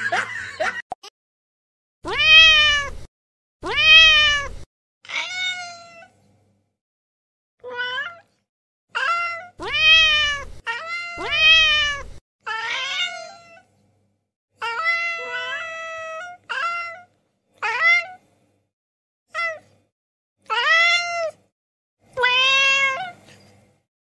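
A cat meowing over and over, about fourteen separate meows with silent gaps between them. Most rise and then fall in pitch; one near the middle is held longer at a steady pitch.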